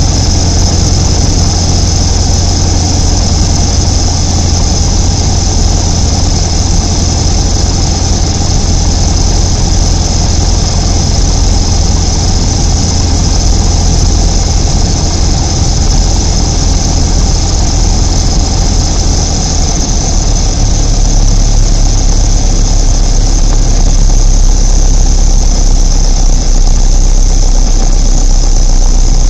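Light propeller aircraft's piston engine and propeller droning loudly in the cockpit on final approach and touchdown, with a steady high whine alongside. The engine note drops lower about two-thirds of the way through, as power comes back for landing.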